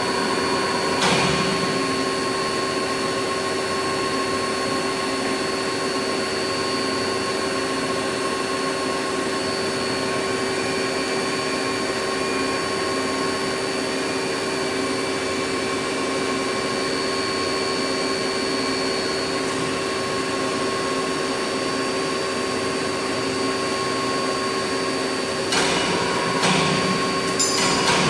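Steady noise of CNC machines running in a machine shop: an even hiss with several steady whining tones. A few short clanks come about a second in and again near the end.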